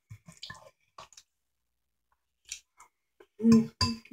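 A person eating noodles: small wet chewing smacks and light clicks of a utensil in the bowl, then a pause. Near the end come two short, loud voiced sounds from the eater.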